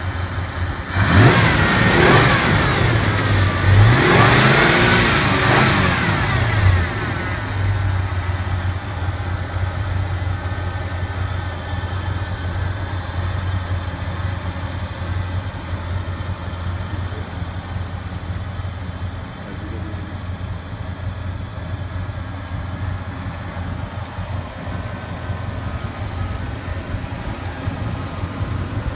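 1965 Pontiac GTO's 389 V8 engine idling, revved twice, about a second in and again about four seconds in, each time rising in pitch and falling back, then settling into a steady idle.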